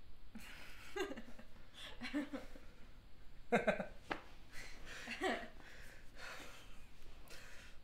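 A man and a woman laughing together in several short bursts, with breathy pauses between them.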